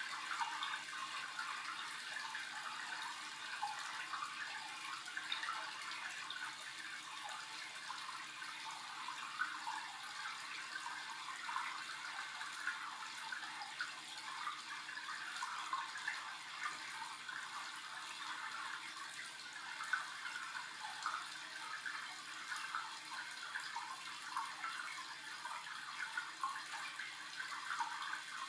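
Steady running, bubbling water with a crackling rush and a faint steady hum underneath.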